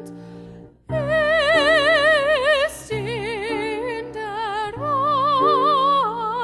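A woman sings a classical art song with wide operatic vibrato over sustained piano chords. She breaks off briefly about a second in, then resumes in long held phrases.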